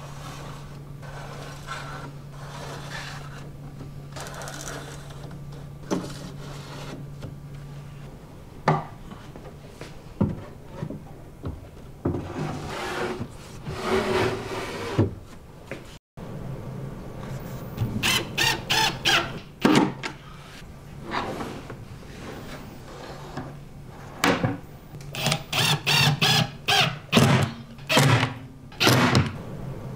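Plywood drawers being handled and slid on metal ball-bearing drawer slides, with wooden knocks and rubbing. In the second half, a cordless drill drives screws into a steel drawer slide in several short bursts.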